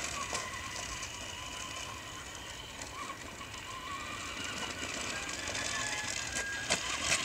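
Traxxas Stampede 2WD RC monster truck driving: the steady whir and gear whine of its brushed electric motor and drivetrain, growing a little louder near the end.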